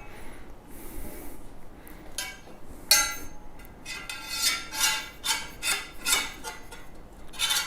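Metal parts of a compost tumbler's frame clinking and knocking together as they are handled and fitted, with a short metallic ring after each knock: a sharp one about three seconds in, then a run of lighter ones.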